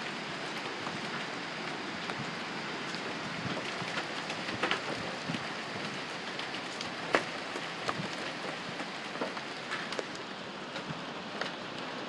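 Windstorm blowing through tall trees: a steady rushing noise with scattered sharp ticks and pops, the loudest about seven seconds in.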